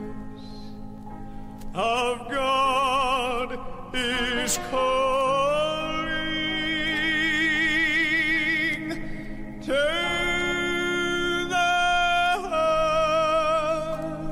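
Southern gospel quartet recording: a high voice holds long notes with wide vibrato over a steady low accompaniment, moving to a new pitch every second or two.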